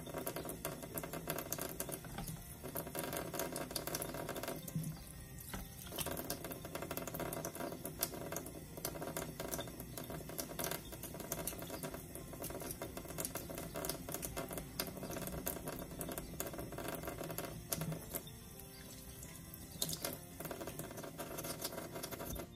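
Raw shrimp being peeled by hand: many small clicks and crackles of the shells coming off, over soft background music.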